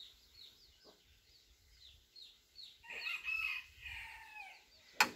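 Birds calling: a run of short falling chirps, about two a second, then a louder call with several tones about three seconds in. A sharp click near the end.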